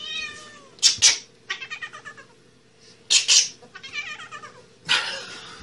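A long-haired cat yowling and caterwauling while a person grabs and holds it, about three drawn-out wailing cries that bend in pitch. Between them come three short, loud, harsh bursts of noise.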